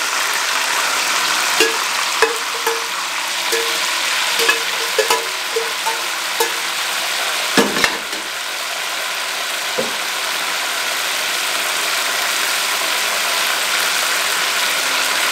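Minced meat and tomatoes sizzling steadily in hot oil in a wok. A metal utensil gives light clicks and taps against the pan through the first half, with a louder knock about halfway and one more tap a couple of seconds later.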